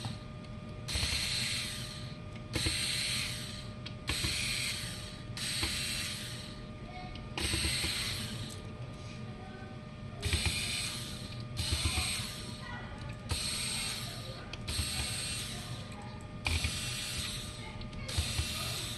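Repair tool working on an LED module in repeated rasping strokes, each about a second long, one every second or two, over a faint steady electrical hum.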